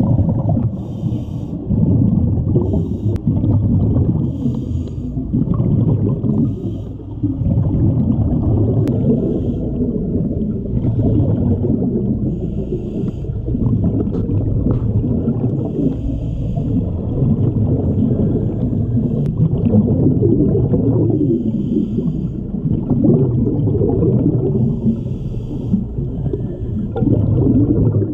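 Scuba breathing heard underwater through a regulator: a continuous low bubbling rumble of exhaled air, with a short hiss every two to three seconds.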